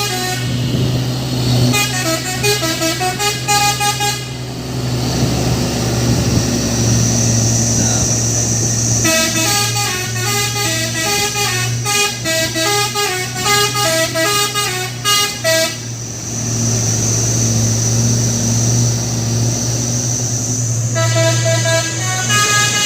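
A truck's telolet multi-tone air horn plays quick melodic runs of notes in three spells, over the steady hum of the truck's engine running.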